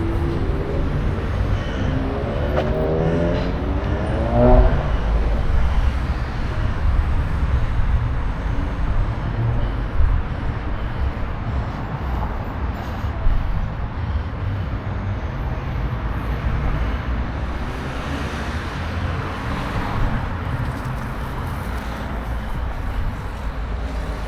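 Road traffic: a motor vehicle accelerating past, its engine note rising over the first few seconds, then a steady low traffic rumble.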